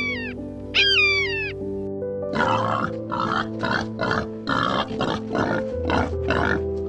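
Background music with an animal's voice over it: one falling call about a second in, then a run of short, noisy grunt-like calls, about two a second.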